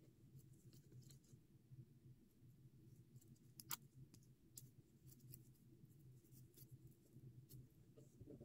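Faint light clicks and ticks of paper cut-outs being handled and set down on a wooden table, over a low steady hum; one sharper click about three and a half seconds in.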